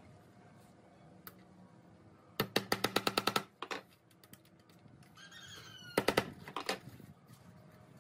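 Steel tape measure pulled out across a wooden board: a fast rattle of clicks lasting about a second, then a few more sharp clicks about three seconds later as the blade is handled and laid down.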